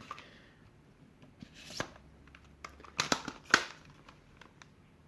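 Scattered small plastic clicks and clacks of a Nerf blaster and foam ammunition being handled and loaded. Sharper clicks come about two, three and three and a half seconds in.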